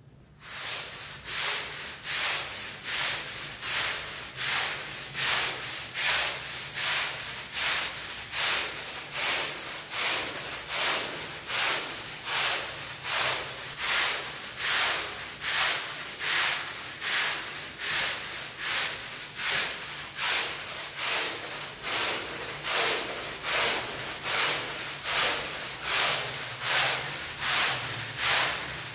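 A stiff-bristled scrub brush is scrubbing a wet rug in a steady rhythm of hissing back-and-forth strokes, about one and a half strokes a second.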